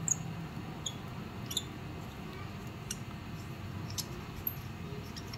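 1 mm twist drill in a hand pin vise being turned by hand through a small 3D-printed plastic gear, reaming out its shaft hole: a few light, scratchy clicks and squeaks spread out about once a second over a low steady hum.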